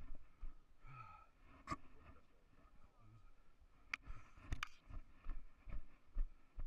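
Footsteps of a hiker scrambling over rock: boots thudding and scuffing on stone, about two steps a second near the end, with a few sharp clicks and knocks among them.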